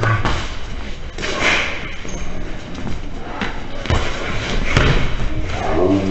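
Repeated dull thuds of boxing gloves landing, over a noisy hall. Music with a wavering pitched voice comes in near the end.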